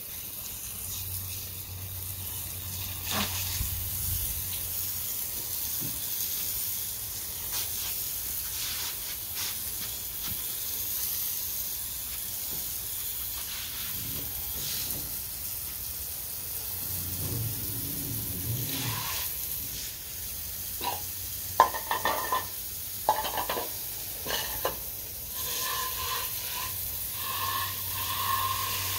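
Steady hiss of rain falling, with a cluster of sharp knocks and clatters about three-quarters of the way through.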